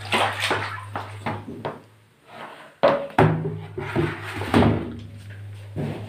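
A run of irregular knocks and rustling as a heavy damp double-bed blanket is lifted and moved over a plastic tub, with a low steady hum that drops out briefly about two seconds in.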